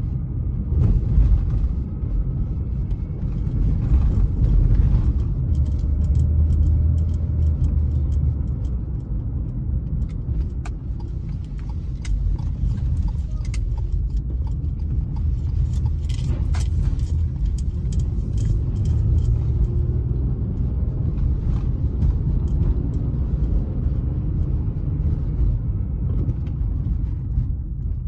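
Low, steady road rumble of a car driving on city streets, heard from inside the cabin, with scattered short clicks and rattles.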